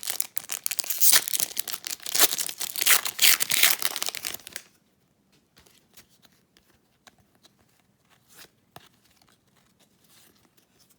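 A pack of 2019-20 Upper Deck Series One hockey cards being torn open, its wrapper tearing and crinkling loudly for about four and a half seconds. Then only faint small clicks.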